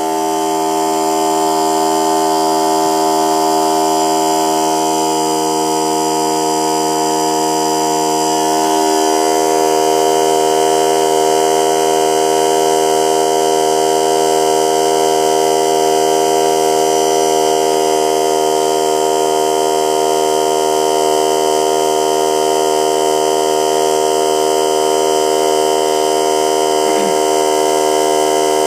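Harbor Freight 3-gallon 100 PSI oilless pancake air compressor running loud and steady, its pump filling the tank with air.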